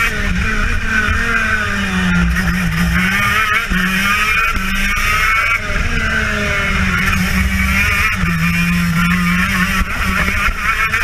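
TM KZ10B 125cc two-stroke shifter kart engine at racing speed, heard onboard; its note falls for corners about two seconds in and again about eight seconds in, then climbs as it accelerates.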